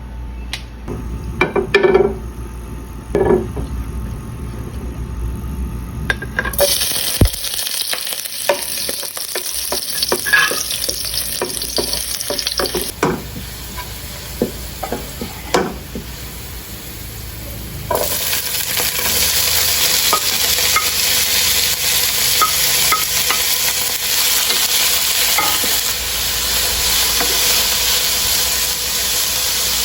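Food frying in a pan, with clinks and scrapes of a utensil. The sizzle starts about six seconds in and grows louder past the middle.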